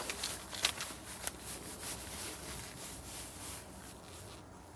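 Handling noise: faint rubbing with a few sharp clicks in the first second and a half, the loudest about a second in, then dying down to a low hiss.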